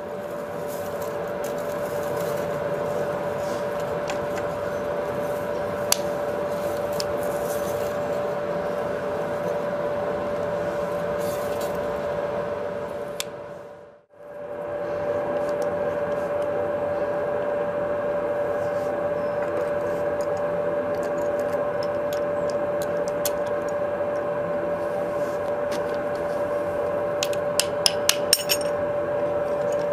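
Hydraulic power pack running with a steady mechanical hum; the sound fades out and back in about halfway. Near the end, a quick run of sharp metallic clicks comes as the drill bit is taken off the hydraulic magnetic drill.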